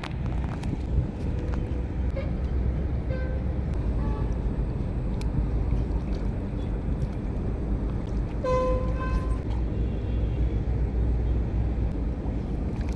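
Steady low outdoor rumble, with a short horn toot about eight and a half seconds in and a few fainter brief tones earlier.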